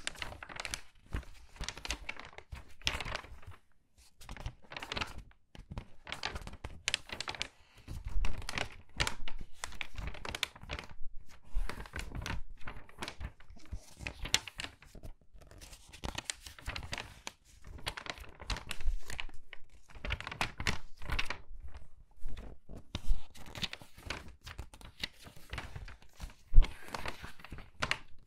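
Pages of a crinkly magazine turned quickly one after another, a fast, uneven run of paper rustles and crinkles with now and then a low thump.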